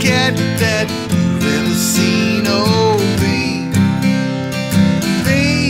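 Music: strummed acoustic guitar, with a melody line that bends in pitch over it.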